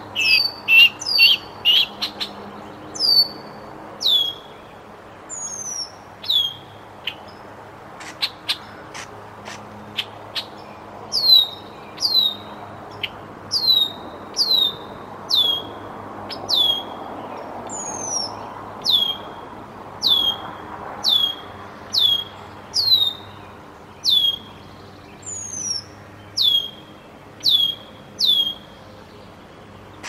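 A red-winged blackbird mobbing a bald eaglet: a quick chatter at first, then sharp down-slurred alarm calls repeated about once a second, mixed with short clipped check notes.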